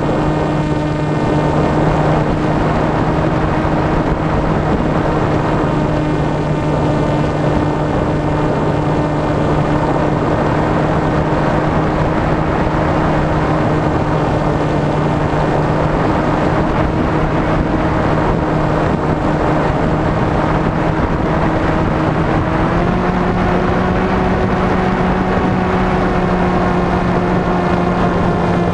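RC flying wing's motor and propeller droning at a steady pitch, heard from the on-board camera with wind rushing over the microphone. About three quarters of the way through the pitch steps up a little as the throttle is opened.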